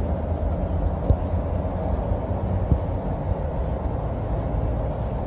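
Bus engine and road noise heard from inside the moving coach's passenger cabin: a steady low rumble. Two short knocks come about a second in and again near three seconds.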